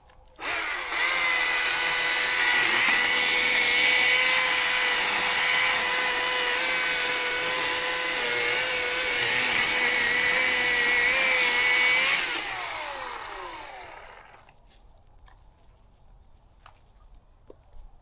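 Chainsaw running at a steady high pitch for about twelve seconds, then winding down with a falling pitch and fading out.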